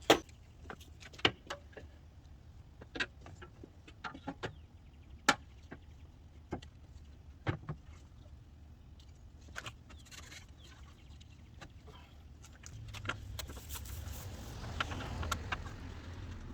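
Scattered sharp clicks and knocks of hand tools and metal parts being handled while working on a minivan sliding-door roller assembly. A longer rustling, scraping noise with more clicks follows near the end.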